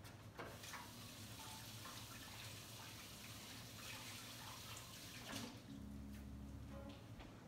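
Kitchen faucet running into the sink while hands are rinsed under it, a faint steady splashing hiss that stops about five seconds in.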